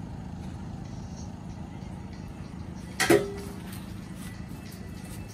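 A single sharp metallic clank about three seconds in, with a brief ringing tone, from a campground's metal electrical power pedestal as it is handled while hooking an RV up to 30-amp shore power. A steady low hum runs underneath.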